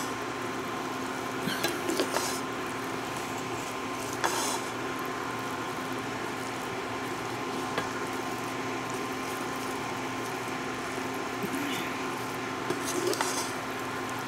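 Wooden spatula stirring and scraping a chicken-and-vegetable filling around a frying pan, with a few light knocks against the pan, over a steady hum.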